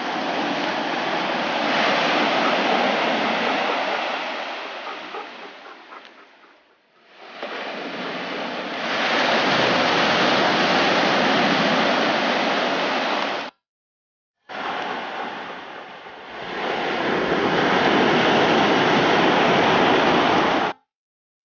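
Small surf breaking and washing up a sandy beach: a steady rushing that swells and eases, cut off abruptly twice.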